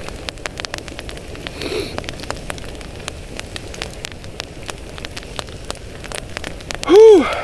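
Campfire crackling, with sharp pops scattered all through. Near the end a short, loud pitched sound rises and falls in pitch.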